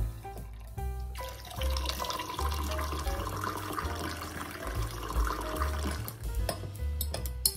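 Water pouring in a steady stream from a stainless steel jug into a glass of shochu, over background music with a bass line. A sharp click near the end.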